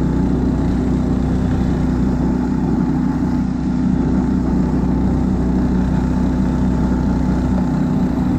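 Husky motorized tow (tracked 'motor-dog') engine running steadily while pulling a sled with two riders over snow, an even hum with no change in pitch.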